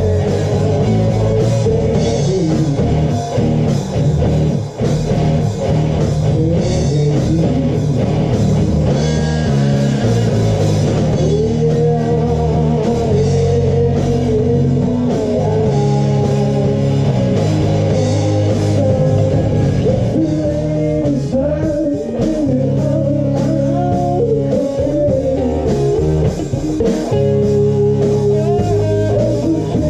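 Rock band playing together live in a rehearsal room: electric guitars, bass guitar and a drum kit, with long held, bending melody notes over a steady backing.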